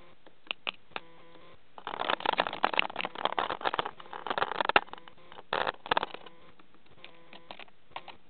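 A pet budgerigar pecking and scrabbling at a camera right by the microphone: quick runs of sharp beak taps and claw scratches, thickest in the middle, with another short burst a second later and a few lone clicks.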